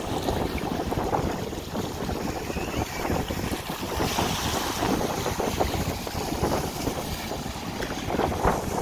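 Wind buffeting the microphone over the wash of small waves running up a shallow sandy beach.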